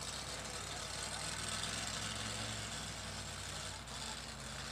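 Supercharged pulling-truck engine idling steadily after its pass, a low, even engine note with no revving.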